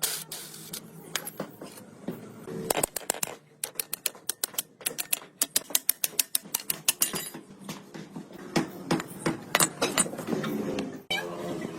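Hand-tool work on motorcycle parts: a quick series of sharp clicks and taps, packed closest together in the middle at roughly four or five a second, with a few louder knocks.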